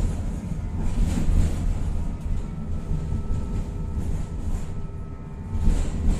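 Tatra-Yug K1M tram in motion, heard from aboard: a steady low rumble of wheels on the rails with a faint steady whine, and louder knocks about a second in and near the end.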